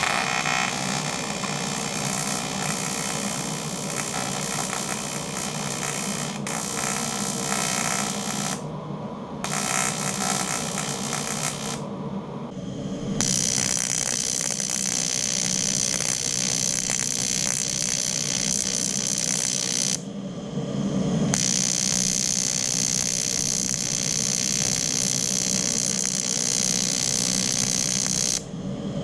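AC TIG welding arc on 0.2 mm drink-can aluminium at 15 A from an Aurora PRO INTER TIG 200 AC/DC PULSE inverter, a steady buzz with hiss. The arc cuts out briefly a few times and strikes again.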